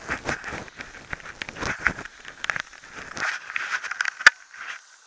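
Dog sled running over snow: irregular crunching and scraping of the runners with small knocks and rattles, and one sharp knock about four seconds in, after which it goes much quieter.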